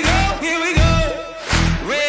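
Background pop song: a singer's voice gliding through a melody over a heavy bass beat.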